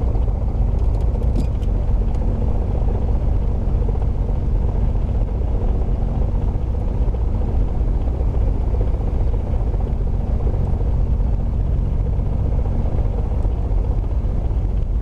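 Beechcraft Bonanza's six-cylinder piston engine idling while the plane taxis, heard from the cockpit as a steady low hum.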